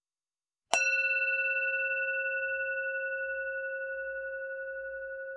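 A bell struck once, ringing on and fading slowly with a slight wavering, as the countdown timer's end alarm at zero.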